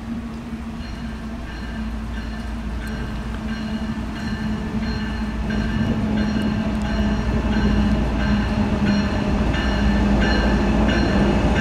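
Lead diesel locomotives of a CN freight train, numbers 2883 and 2973, approaching: a steady engine rumble that grows louder as they near, with short high ringing notes repeating over it from about a second in.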